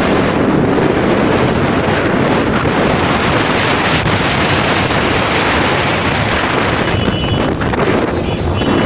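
Wind buffeting the microphone of a moving vehicle, a loud steady rush over the rumble of road traffic.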